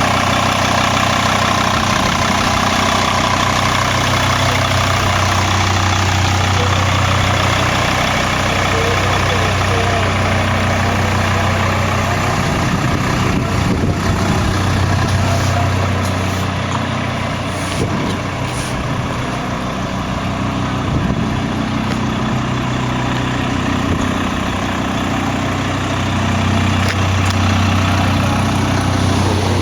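Mercedes OM612 2.7-litre five-cylinder turbo diesel idling steadily, a deep even hum that eases for several seconds in the middle.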